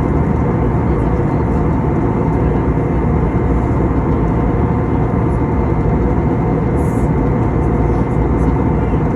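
Steady in-flight cabin noise of an Airbus A320neo heard from a seat close to the wing: the even rush of airflow and the low hum of its CFM LEAP-1A turbofan engine, with a faint steady high whine.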